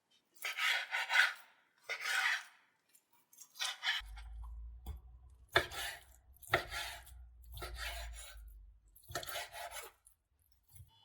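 A kitchen knife cutting food on a chopping board: about eight rasping slicing strokes, each under a second, roughly a second apart.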